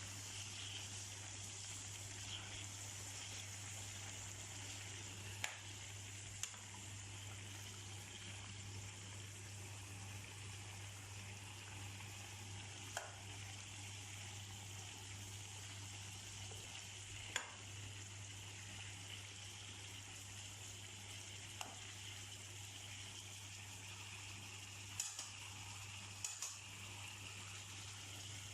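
Marinated chicken pieces sizzling steadily in hot frying oil, with a few sharp pops scattered through.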